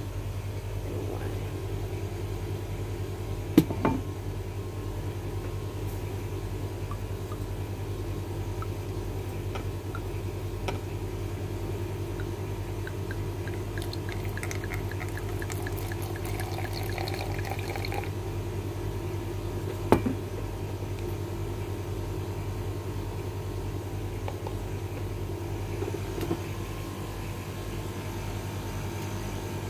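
Red wine poured from a glass bottle into a plastic measuring jug, gurgling for a few seconds about halfway through. A steady low hum runs underneath, broken by a few sharp knocks, the loudest near the start and about two-thirds of the way through.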